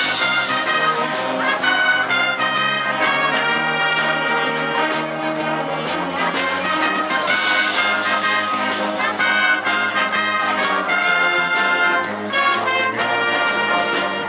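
High school band playing a pops tune, the brass section prominent, with held chords and moving melody lines.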